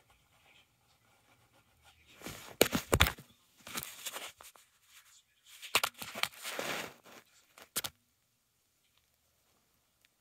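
Handling noise from a phone being moved and repositioned: rubbing and scraping on the microphone, with sharp knocks, in loud spells from about two seconds in. It cuts off suddenly near eight seconds.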